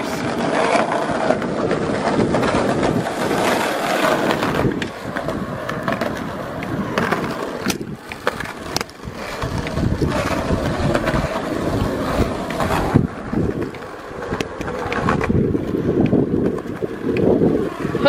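Skateboard wheels rolling fast over rough, cracked asphalt and concrete: a continuous gritty rumble broken by a few sharp clacks.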